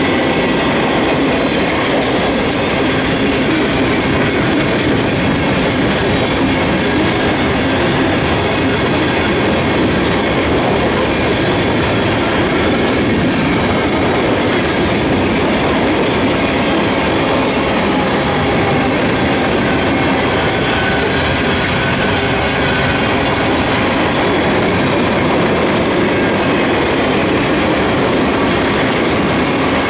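Freight cars of a manifest train rolling past close by: a loud, steady clatter and rumble of steel wheels on the rails.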